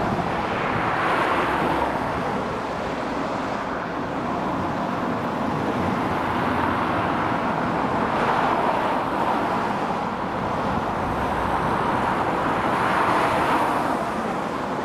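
Road traffic: a van and cars driving past close by, their tyre and engine noise swelling and fading as each one goes by.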